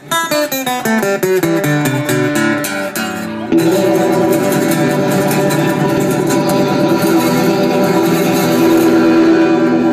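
Accordion, acoustic guitar and banjo playing together. They open with a quick descending run of plucked notes, then about three and a half seconds in go to a louder chord, held on the accordion and strummed on the strings.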